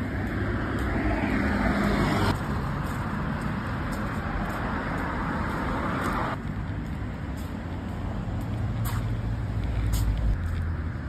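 Street traffic noise: cars running past on a nearby road. A vehicle's low rumble swells about eight seconds in and stops shortly after ten, and the background changes abruptly twice.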